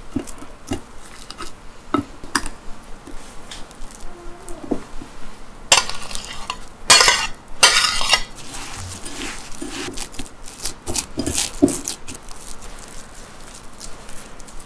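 A metal fork mashes a peeled banana on a ceramic plate with small taps and squishes. About six seconds in, the fork scrapes the mash off the plate into a glass bowl in a few loud scrapes. Then the sticky biscuit-and-chocolate mixture is stirred and squeezed by hand.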